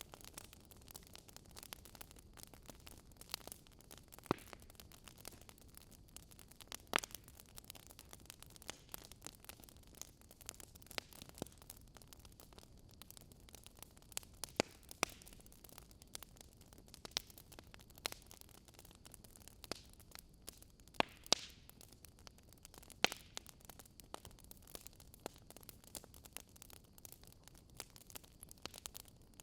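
Burning wood logs crackling: irregular sharp pops and snaps over a soft steady hiss, with a few louder pops scattered through.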